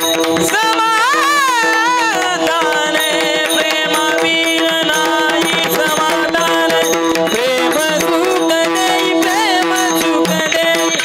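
Marathi abhang devotional singing: a high solo voice sings an ornamented, wavering melodic phrase about a second in, over a steady held drone and continuous pakhawaj drumming with hand-cymbal strokes.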